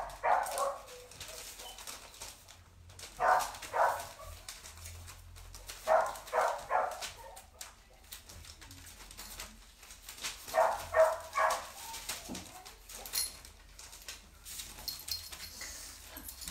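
A dog barking in four short volleys of two to four barks each, a few seconds apart.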